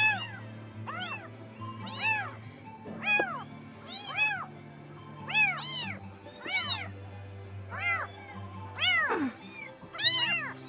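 A very young kitten mewing over and over, short high-pitched cries that rise and fall, about one or two a second. Soft background music runs underneath.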